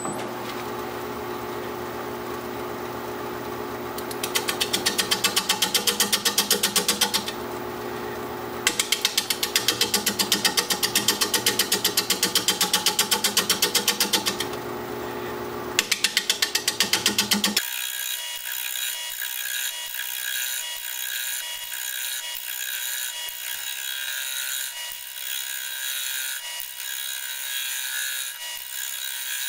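A bowl gouge cutting the outside of a spinning live oak bowl blank on a wood lathe, over the lathe's steady hum. Through the middle come long runs of rapid, even ticking as the gouge strikes the high spots of the out-of-round, bark-edged blank on each turn: an interrupted cut on a blank not yet trued round. In the last third the sound thins to a lighter cutting noise.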